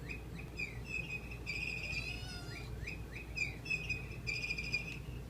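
Pet bird calling: a quick run of short chirps, broken by longer buzzy calls and a brief warbling trill.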